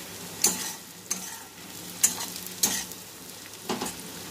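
Chopped onion, garlic and ginger sizzling in hot mustard oil and ghee in a metal kadai over medium heat, frying until their raw smell goes. A metal spatula scrapes across the pan about five times as the mixture is stirred; these scrapes are the loudest sounds.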